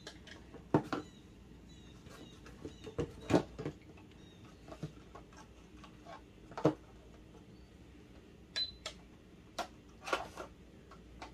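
Plastic toy cash register and play-food boxes being handled: scattered clicks and knocks as items are picked up, scanned and set down, with two short high beeps from the toy's handheld scanner, one at the start and one near the end.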